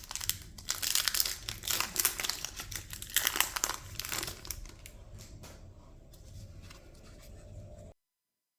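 Trading card booster pack wrapper crinkling and tearing as it is opened, busy for the first few seconds and then quieter handling. The sound cuts off suddenly near the end.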